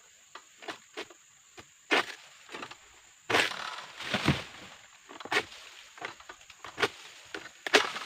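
Egrek, a long-poled harvesting sickle, cutting an oil palm frond: a series of sharp cracks and snaps as the blade bites and pulls through. About three seconds in, the severed frond crashes down through the leaves with a rustle and lands with a thump, followed by a few more cracks.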